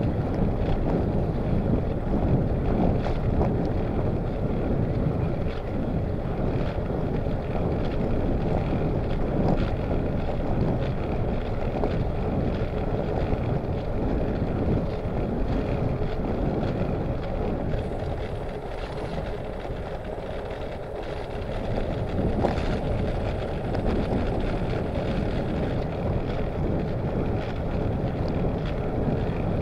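Wind buffeting the microphone of a camera on a moving bicycle, with road and tyre rumble underneath; it eases for a few seconds about two-thirds of the way through.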